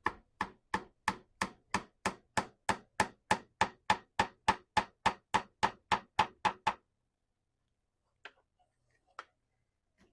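Hammer tapping a 3/16-inch glued dowel into a worn screw hole in wood: a steady run of quick knocks, about three a second, that stops after about seven seconds, followed by two faint knocks.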